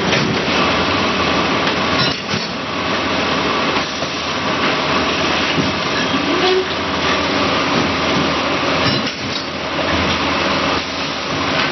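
Automatic casting machine running, a steady mechanical clatter with several sharp knocks as it works.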